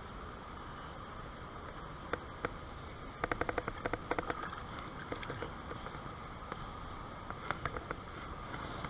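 Mountain stream running steadily, with a quick run of sharp clicks a few seconds in and scattered single clicks around it.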